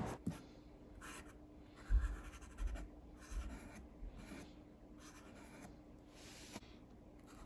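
Faint scratching of an acrylic paint marker's tip on a small canvas, in a string of short strokes. A dull low bump about two seconds in is the loudest sound.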